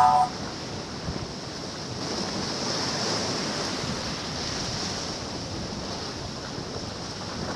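Ocean surf washing steadily on a shore, with wind on the microphone; the last note of a guitar music track dies away at the very start.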